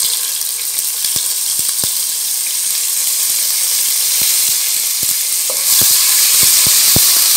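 Ginger-garlic paste sizzling in hot oil with whole spices, with scattered sharp pops. The sizzle grows louder near the end as a wooden spoon stirs the paste through the oil.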